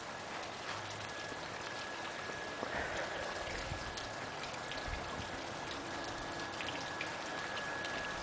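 Steady rain falling, with many scattered sharp drop hits close by and a faint steady high tone underneath.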